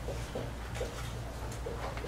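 Dry-erase marker squeaking on a whiteboard in short strokes, about one every half second, as a word is written, over a steady low room hum.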